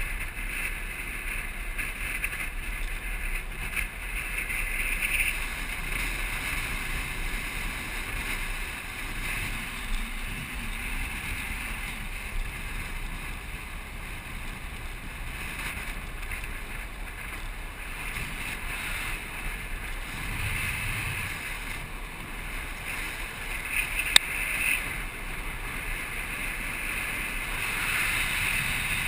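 Land yacht rolling fast across a dry lakebed: a steady rush of wind on the microphone mixed with the tyres running over the hardpan. There is one sharp click late on.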